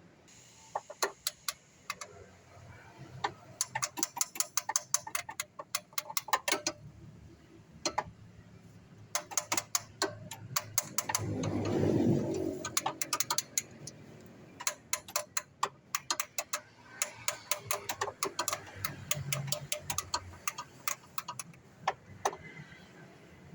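Ratchet wrench clicking in quick runs of a second or two, stopping and starting, as a bolt is worked on the Daihatsu Charade G10 during an oil change. A brief louder, lower swell comes about halfway.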